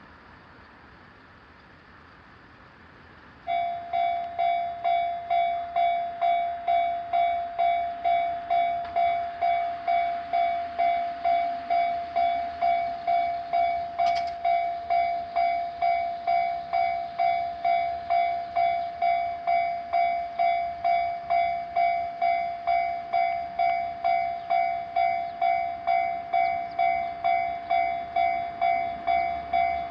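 Japanese railway level-crossing alarm starting suddenly about three and a half seconds in: an electronic bell tone that rings in even, quickly decaying strokes about 1.7 times a second, the crossing's warning that a train is approaching.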